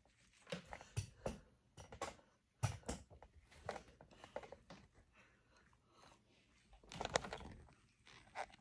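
Faint, irregular clicks and cracks of a seafood boil being eaten by hand: crab shells being handled and broken, with chewing, and a denser run of cracks about seven seconds in.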